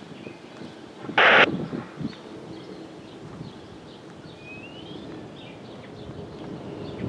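A short, loud burst of rushing noise about a second in, then faint bird chirps over a low, steady engine hum from the approaching vehicle that grows toward the end.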